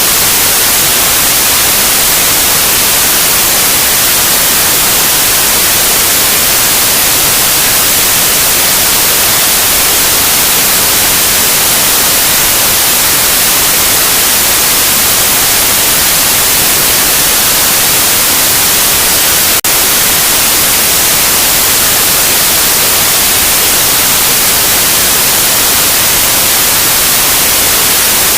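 Loud, steady white noise: an even hiss, brightest in the high end, with one momentary dip in level about two-thirds of the way through.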